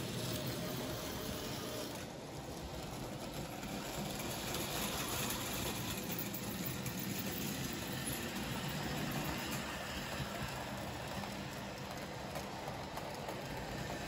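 Märklin H0 model trains running on the layout's track, a steady running noise with no clear breaks.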